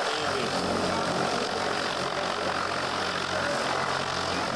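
Twin Otter turboprop engine running steadily at ground idle: a constant, even rush of engine noise with no change in pitch or level.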